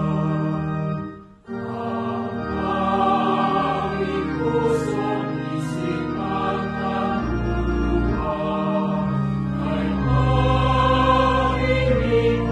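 Choir singing a Tagalog hymn. The music drops almost to silence for a moment about a second in, then the singing resumes with the next verse.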